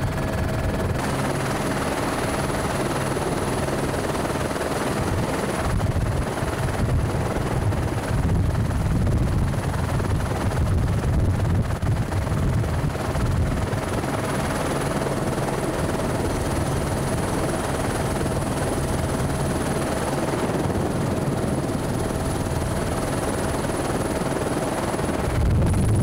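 Helicopter rotor and engine running steadily: a low, even rotor beat under a constant whine, with a wash of wind noise.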